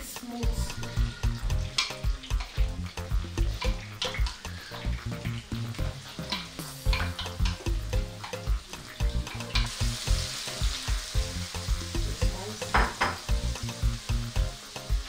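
Chopped red pepper mix frying in hot oil in a non-stick pan, sizzling, with many quick scrapes and knocks from a wooden spatula stirring it. The sizzle grows stronger and brighter about two-thirds of the way through.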